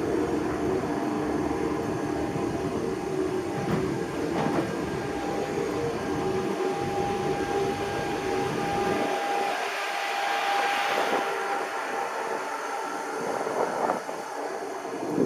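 Automated guided vehicle carrying the microphone, running with a steady mechanical hum and a few held tones over road noise; the low rumble drops away about nine seconds in.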